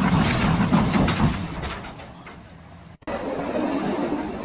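A truck-mounted crane's truck engine running with some sharp knocks, fading away; about three seconds in it cuts off abruptly to a steady rush of engine and wind noise as a pickup slides through loose sand.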